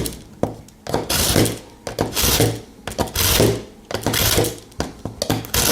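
A steel pocket-knife blade drawn repeatedly through a small handheld carbide-and-ceramic disc sharpener, rasping strokes about once a second.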